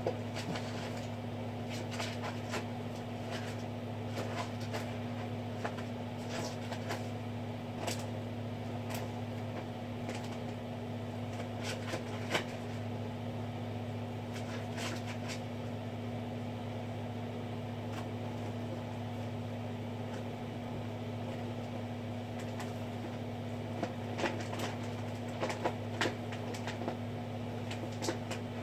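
Steady low hum of aquarium equipment, with scattered light clicks that come in small groups.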